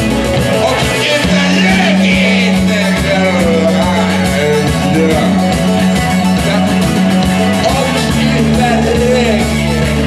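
Live rock and roll band playing: a singer over drums and a steady bass line, amplified through stage speakers.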